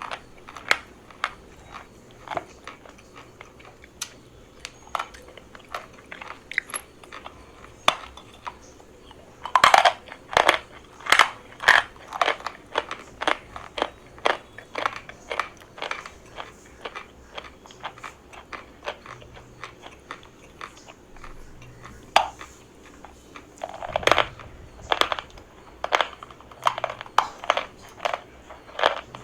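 Pieces of dry chalk being bitten and chewed close to the microphone: a long run of sharp, irregular crunches, louder and denser about ten seconds in and again near the end.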